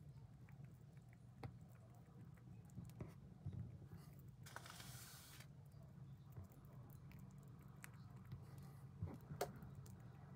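Near silence with faint, scattered tiny clicks of a dwarf hamster nibbling a seed-coated food ball, a brief soft hiss near the middle and a couple of sharper clicks near the end.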